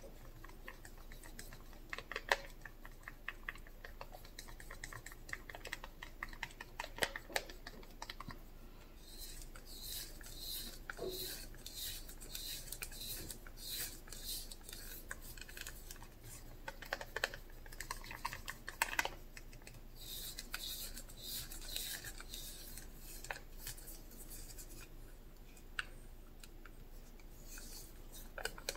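Wooden craft stick stirring acrylic paint mixed with Mod Podge and Floetrol in a small plastic cup. Its tip repeatedly clicks and scrapes against the cup's wall and bottom, in two longer runs of quick strokes.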